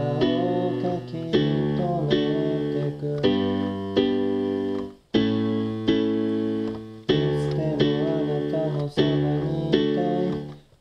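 Electronic keyboard playing a chord progression, a new chord struck about every second and dying away, with a brief break about five seconds in.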